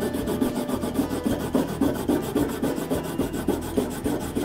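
A bar of green polishing compound rubbed back and forth over the flesh (suede) side of a leather strop on a wooden block, quick repeated scrubbing strokes that charge the strop with compound.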